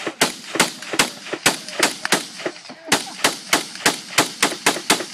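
Rapid gunfire: about twenty shots in quick succession, three to four a second at uneven spacing, stopping just at the end.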